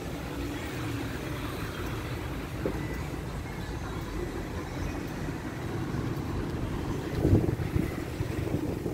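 Street traffic ambience: a steady low rumble of cars, with a few louder bumps near the end.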